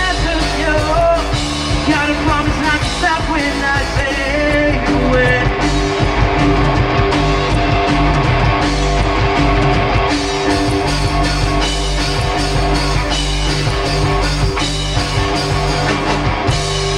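Live rock band playing loudly: a singer's melody over electric guitar and drums for the first few seconds, then the band carries on instrumentally with steady held chords.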